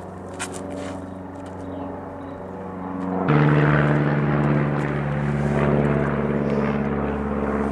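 Steady engine drone with an even pitched hum that jumps louder and changes pitch abruptly about three seconds in.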